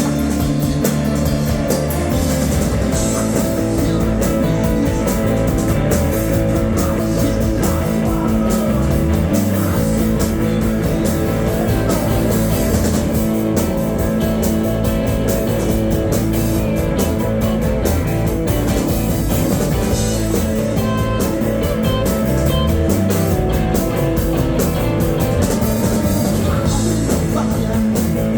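Rock band playing live and loud, electric guitars with a drum kit.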